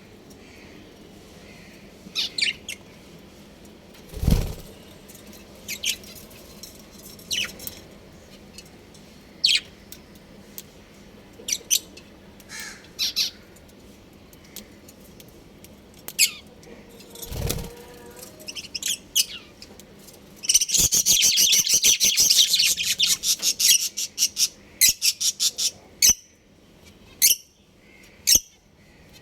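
Pet budgerigars chirping in short, high, scattered calls, breaking about three-quarters of the way through into a few seconds of fast, dense chattering. Two knocks stand out, one a few seconds in and one just past the middle.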